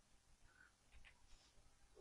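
Near silence: room tone, with two or three faint ticks about a second in.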